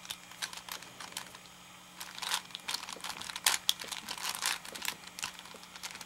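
Plastic clicks and clacks of a V-Cube 5 (5x5x5 puzzle cube) as its layers are turned by hand. The turns come irregularly, sparse at first and busier from about two seconds in.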